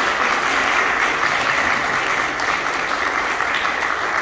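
Steady applause from an audience and the choir, many hands clapping at once.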